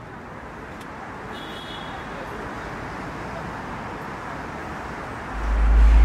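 Street traffic noise: a steady hiss of passing cars, with a brief faint high squeak about a second and a half in. Near the end a loud low rumble comes in.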